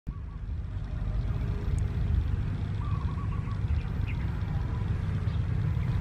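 Steady low rumble, with a bird's short trilled call of quick repeated notes about three seconds in.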